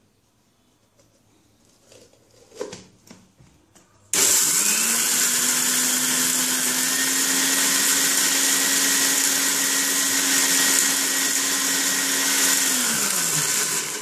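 Maharaja Whiteline mixer grinder switched on about four seconds in, running up to speed and then running steadily as its steel jar grinds sun-dried tomato slices to powder, then switched off and spinning down near the end. A couple of light knocks come before it starts.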